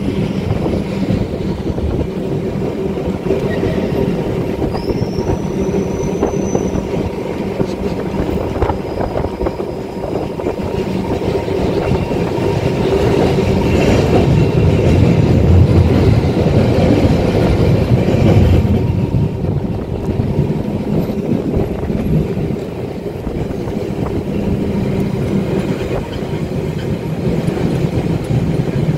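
1934 English Electric boat tram running along street track: steady rumble of its wheels on the rails with a constant hum from its running gear, louder in the middle. A short high squeal comes about five seconds in.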